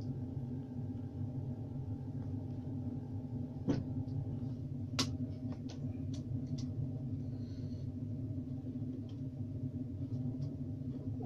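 A steady low hum, with a few light ticks and taps from card being handled and cut at the workbench.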